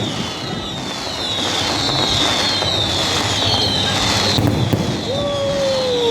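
Fireworks going off in a continuous crackling barrage, with high whistles that fall in pitch about every second and a half and a sharp crack about four seconds in.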